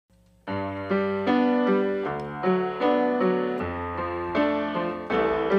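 Background music played on a piano-like keyboard: a melody of notes and chords starting about half a second in.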